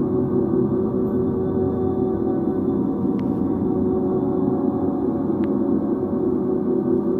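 Live drone music: a dense, unbroken wash of many steady, overlapping low tones with a gong-like resonance, holding at a constant level. Two faint high ticks come about three and five and a half seconds in.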